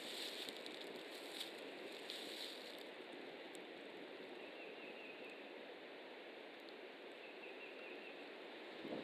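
Strong wind blowing past the nest camera's microphone, a steady rushing noise with light rustling, with two faint, brief high notes partway through.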